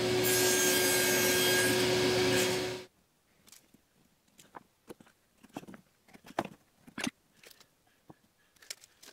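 Table saw running as a softwood block is cut, with a steady hum under the noise, stopping abruptly about three seconds in. Then come faint scattered taps and clicks of a tape measure, a pencil and wood blocks being handled on the bench.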